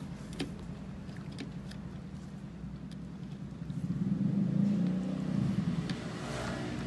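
Low engine rumble of a vehicle going by, growing louder about four seconds in and easing off near the end. Small clicks and smacks of eating by hand come and go over it.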